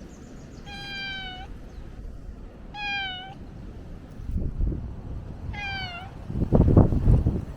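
A cat meowing three times, each meow about half a second long and dropping slightly in pitch at the end. Low rumbling noise swells about four seconds in and is loudest near the end.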